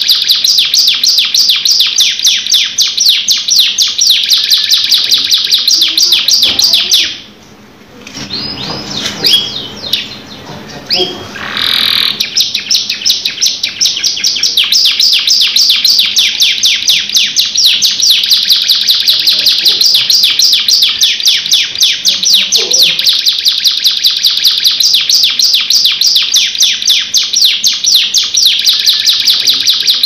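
Domestic canary singing a long, rapid rolling trill. The song breaks off briefly about seven seconds in and gives a few seconds of scratchier, gliding notes before the fast trill resumes.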